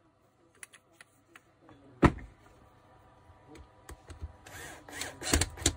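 A few light clicks and a sharp knock about two seconds in from handling the angle grinder, then a Makita cordless drill-driver starts about four and a half seconds in and runs, driving a screw into the grinder's gear housing.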